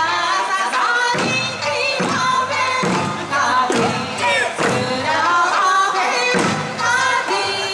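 Okinawan eisa folk music: a singing voice with a strong drum beat about once a second.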